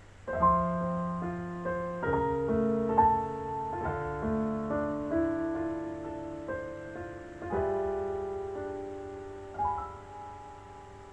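Piano introduction of a Thai ballad played back through an 813 valve amplifier: chords struck several times, each ringing out and fading, over a steady low mains hum.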